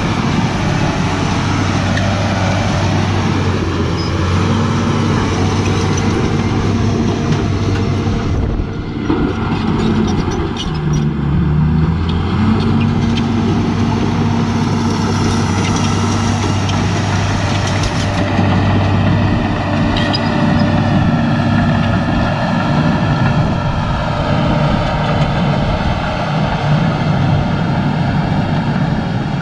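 Bulldozer's diesel engine running steadily at working throttle, its pitch dipping and shifting about nine to twelve seconds in, with a few short metallic knocks.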